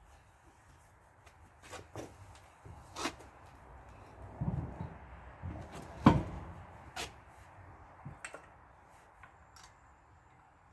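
Scattered clunks and knocks of a tire and wheel being handled and fitted onto a car's wheel hub, with a heavy thud about six seconds in.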